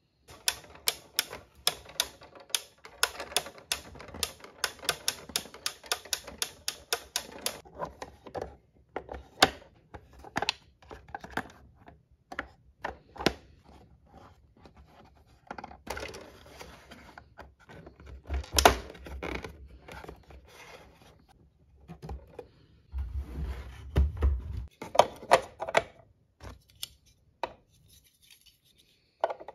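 Hard plastic parts of a toy construction playset clicking as they are worked by hand: a fast, even run of clicks, about four a second, for the first seven seconds or so, then scattered clicks and clatter with two short low rumbles.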